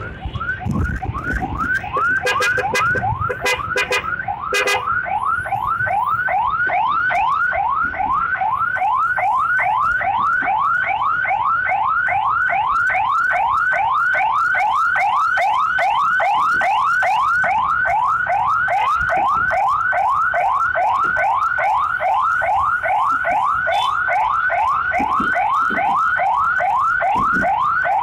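Ambulance siren in rapid yelp mode: quick rising sweeps repeating about three times a second, loud and unbroken.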